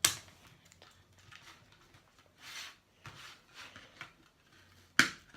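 Toy packaging being handled while a small plastic horse is worked free of its box insert: soft rustling and scraping of cardboard and plastic, with a sharp snap at the start and another about five seconds in.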